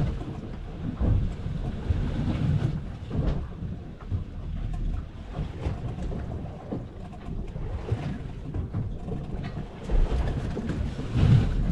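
Wind gusting on the microphone in uneven low rumbles, with choppy sea washing around the boat.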